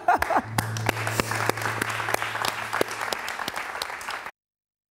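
Studio audience applauding, a dense patter of clapping, with a low steady tone under it for a couple of seconds; it cuts off abruptly near the end.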